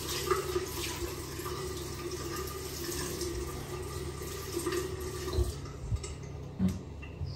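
Water running from a bathroom tap into a ceramic vessel sink, a steady splashing hiss. A few soft low knocks come in about two thirds of the way through.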